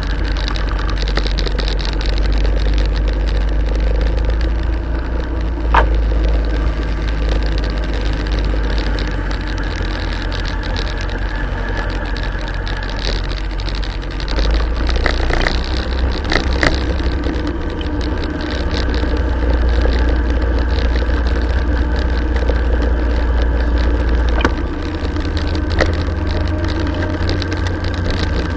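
Motorcycle engine running steadily while riding, recorded from a camera strapped to the bike, with wind rumble on the microphone. A few sharp clicks or rattles sound about six seconds in, around the middle and near the end.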